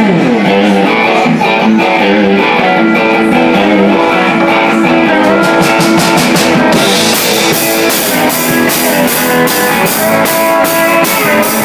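Live country band playing an instrumental intro: electric guitar and steel guitar over bass, with the drums coming in on a steady beat about seven seconds in.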